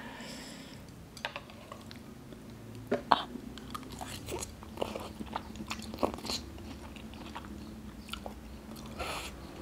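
Close-up eating sounds: noodles slurped and chewed, with many short irregular wet mouth clicks and smacks and a brief slurp near the end.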